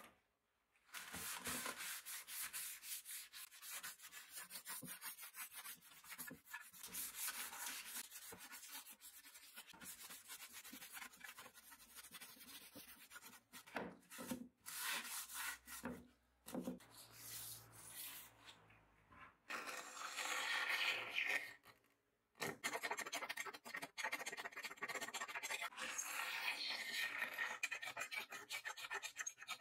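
Cloth rubbing wood stain onto bare wooden boards in continuous wiping strokes. After a brief break near the end, a harsher scraping at a hinge recess in the wood.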